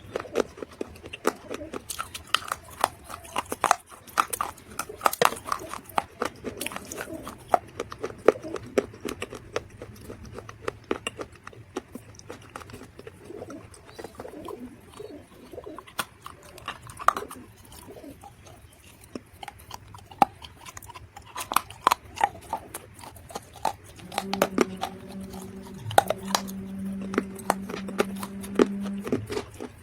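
Dry mud (clay) being bitten and chewed close to the microphone: irregular sharp crunches and crackles. Near the end a steady low hum comes in for about five seconds.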